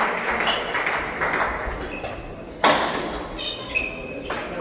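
A badminton racket hits the shuttlecock sharply about two and a half seconds in, followed by short high squeaks of shoes on the sports hall floor and another lighter knock near the end, over a fading murmur of spectators in the echoing hall.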